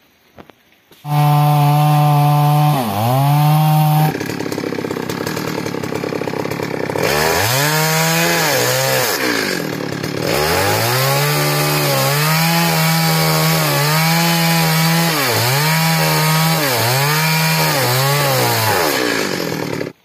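Two-stroke chainsaw running hard, starting abruptly about a second in. Its engine note dips and recovers again and again as the chain bogs down cutting through a tree trunk, then it cuts off suddenly at the end.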